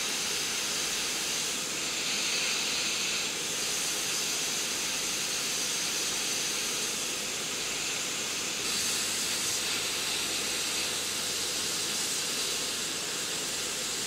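Hot-air rework handpiece blowing a steady hiss of hot air, set low at 250 °C and 60% airflow, onto a circuit board to melt the solder under a tactile switch.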